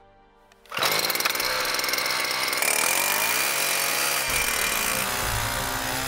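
Small two-stroke petrol engine of a hand-held earth auger, which cuts in abruptly about a second in and runs at high revs with a steady whine. A deeper rumble joins about four seconds in.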